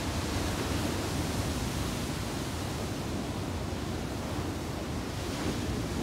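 Ocean waves crashing and washing over shoreline rocks, a steady rush of surf and foam with no single break standing out.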